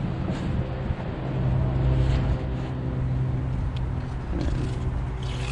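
Steady low motor hum, engine-like, with a few faint clicks and scrapes of a knife filleting a fish on a plastic cutting board near the end.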